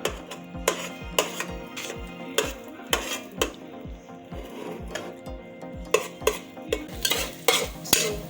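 Eggs sizzling in hot oil in a pot while being scrambled, a utensil knocking and scraping against the pot about twice a second, quicker and louder near the end.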